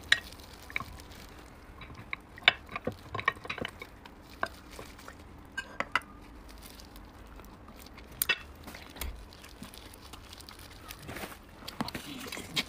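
Light, irregular clicks and taps of eating utensils against dishes, coming a few at a time with pauses between.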